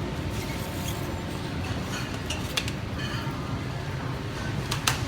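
Shop background music over a steady ambient hum, with a few sharp clinks, the loudest near the end.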